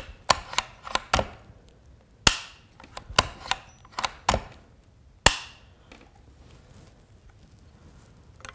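Bolt action of a TCM bolt-action rifle being worked by hand for a safety check: a run of sharp metallic clicks and clacks as the bolt, safety and trigger are operated, two of them much louder, stopping about five and a half seconds in.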